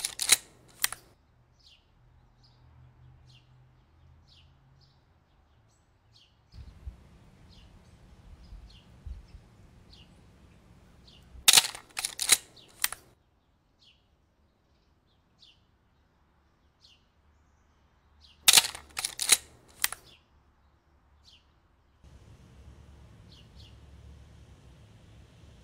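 Film camera shutter and film-advance clicks, a quick cluster of three or four sharp clicks repeated three times: at the start, about halfway through and about three-quarters through. Faint high bird chirps are scattered between them.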